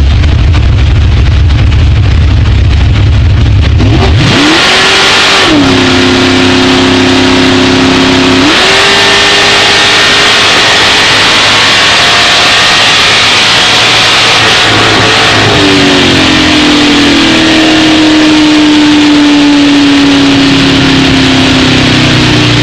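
Super Gas drag car's engine heard from inside the cockpit: a heavy low rumble at the starting line, then about four seconds in it launches and revs up sharply, steps down in pitch at a gear change and runs at full throttle down the track. About fifteen seconds in the pitch slowly falls as the throttle is lifted and the car slows.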